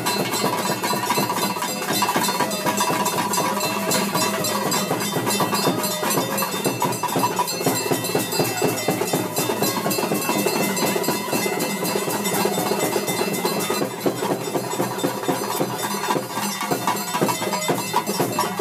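Chenda drums beaten with sticks in a fast, dense rhythm: theyyam drumming.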